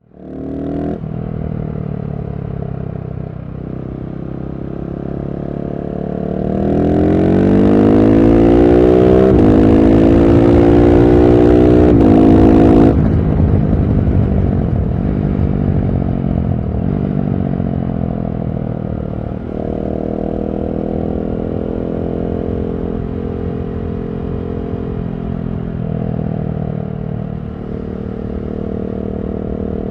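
KTM 690 SMC-R's single-cylinder engine through a LeoVince One Evo slip-on exhaust with its dB-killer fitted. It pulls hard from about six seconds in, the pitch climbing in steps with drops at the upshifts, then falls away as the throttle rolls off about thirteen seconds in, and runs on at part throttle with smaller rises.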